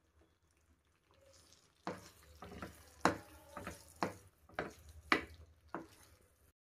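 A spatula stirring fried soya chunks through thick sauce in a non-stick frying pan. It makes about eight short scraping strokes, roughly two a second, starting about two seconds in.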